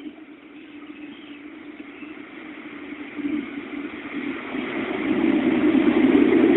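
CC201 diesel-electric locomotive approaching across a steel truss bridge, its engine rumble and wheel noise growing steadily louder as it nears.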